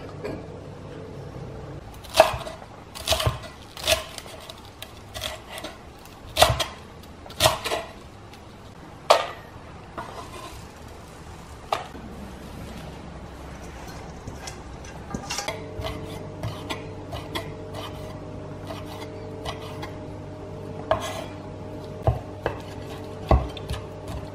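Dishes, jars and lids clinking and knocking on a kitchen counter as ingredients are handled, then a few knife strikes on a wooden chopping board near the end. A steady low hum sets in about midway.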